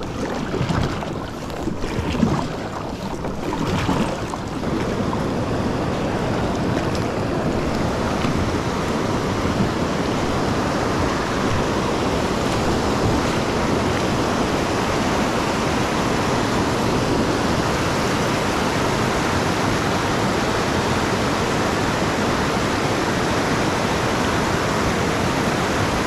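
Rushing whitewater of river rapids, growing louder over the first few seconds and then steady, with a few sharp knocks in the first four seconds.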